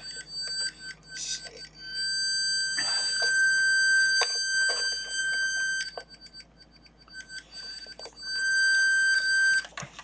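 An electronic-kit buzzer sounding a steady, shrill high tone, the alarm of a sound-activated circuit that noise into its microphone is meant to silence. It is faint at first, loud from about two seconds in, cuts off about six seconds in and comes back about two seconds later. Light knocks of hands handling parts on the kit board are heard along with it.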